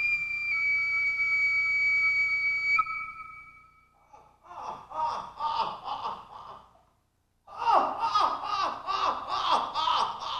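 A flute holds a single high note that fades out after about three seconds. Then comes a long, rhythmic laugh of repeated falling 'ha-ha' syllables in two runs, with a short pause between them.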